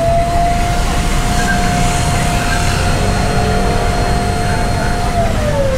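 Cotton candy vending machine's spinner head whirring at a steady pitch, then spinning down with a falling whine about five seconds in as the candy is finished. A steady low rumble of street traffic runs underneath.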